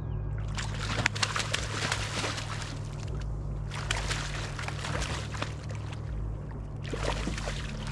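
Water splashing and sloshing at the boat as a hooked channel catfish is fought in, over a steady low hum.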